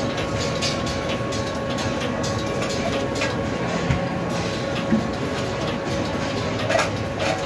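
Steady din of a busy open food-stall kitchen: a constant rushing hum with a faint steady tone through it, and scattered clinks and clatter of utensils and trays, a little louder near the end.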